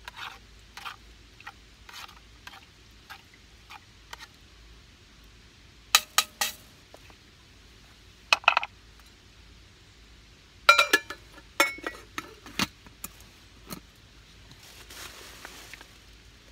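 Camp pot and mug being handled while making coffee: scattered light taps, then several louder clinks and knocks in short clusters.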